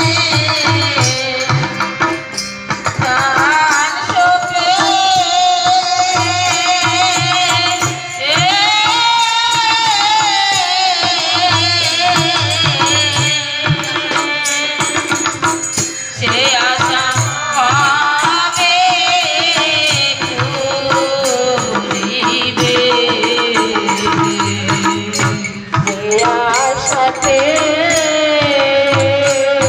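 Women singing a Bengali devotional song into microphones, a held, bending solo melody over harmonium and a steady hand-drum beat.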